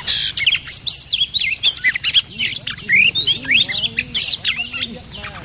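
Oriental magpie-robins singing in rapid, varied whistles with notes sweeping up and down, packed close together. This is territorial song, with a wild male confronting a caged decoy.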